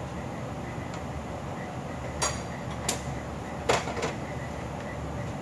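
Steady low hum of a workshop with a faint, even ticking, broken by four short sharp knocks or clatters, two about two to three seconds in and two near four seconds.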